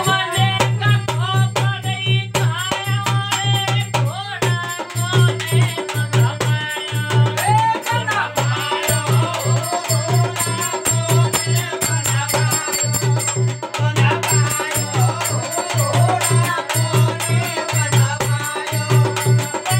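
Live Rajasthani folk Holi song: a man's singing voice over a harmonium, with a hand-played dholak keeping a steady beat and hand claps and jingling percussion along with it.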